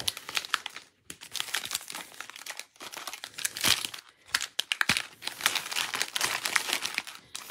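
Crinkling and rustling of the foil wrappers of 2021 Bowman Draft jumbo card packs as they are picked up, shuffled and pushed into a stack, in spurts with brief pauses.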